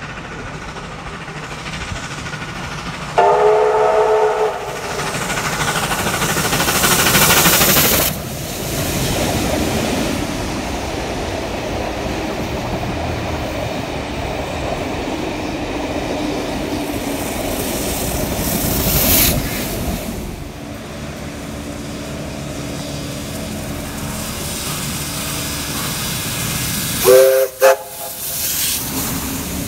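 A heritage train sounds its whistle: one held chord-like blast about three seconds in and two short blasts near the end. Steady running rumble and hiss of the train fill the time between.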